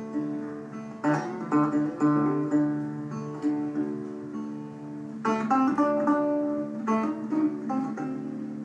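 Guitar playing an instrumental break between sung verses: plucked notes ringing over sustained chord tones, with busier picking about a second in and again from about five seconds on.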